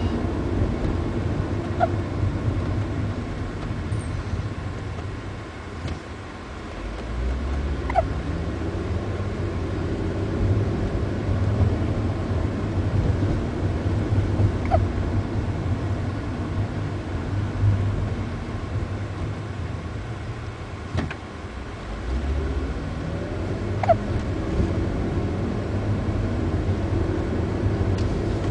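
A few short, sharp hiccups several seconds apart over a steady low rumble.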